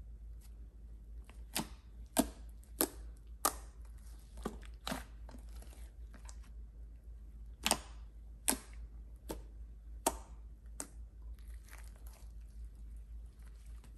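Thick, fluffy slime with small beads mixed in, kneaded and stretched by hand in a glass dish: irregular sharp sticky pops and crackles, about a dozen, as the slime pulls apart and folds over. A steady low hum runs underneath.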